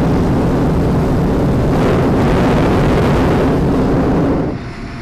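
Hot-air balloon's propane burner firing in one long, loud, steady blast that cuts off suddenly about four and a half seconds in.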